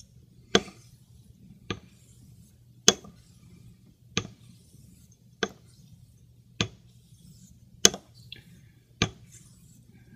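A Greaves near-wedge straight razor being honed on a wet Shapton Pro waterstone: a sharp click about every 1.2 seconds, eight in all, as the blade is turned over on its spine at the end of each stroke.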